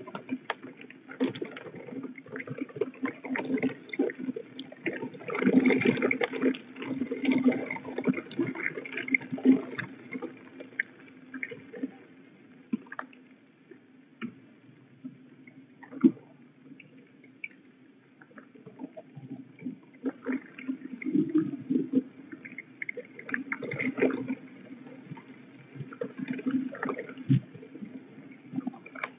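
Rain and splashing water on a wet nest ledge, with bursts of wing-flapping and splashing from young peregrine falcons moving through the puddles. It is busiest from about five to ten seconds in and again from about twenty to twenty-seven seconds in, and quieter in between.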